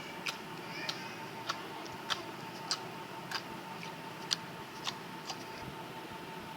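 Slime being pressed and played with, giving sharp little clicks and pops at a fairly regular pace, about two every second, over a steady faint hum.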